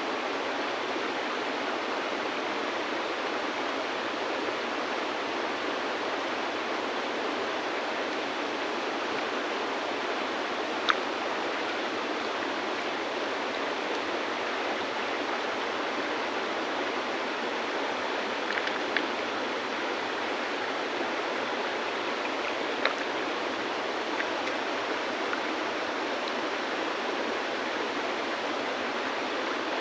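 River water flowing steadily, with a handful of short, sharp clicks of stones knocking together scattered through it, the loudest about eleven seconds in.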